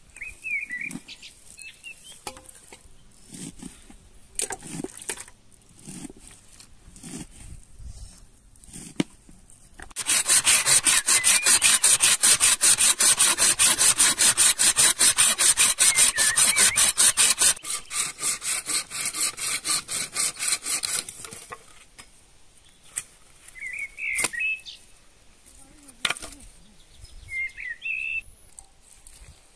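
Hand pruning saw cutting through a dry log, with rapid, even back-and-forth strokes, several a second, that then grow weaker and stop. Before the sawing there are a few scattered soft knocks, and a bird chirps a few times near the end.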